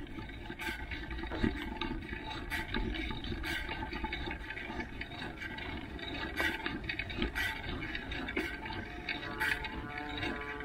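Wind rushing over an action camera's microphone as a mountain bike rolls along pavement, with tyre noise and the bike rattling and clicking over the bumps.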